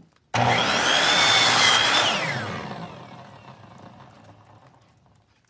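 Power tool starting abruptly and running loud for about two seconds with a high whine, then winding down as the whine falls in pitch and fades.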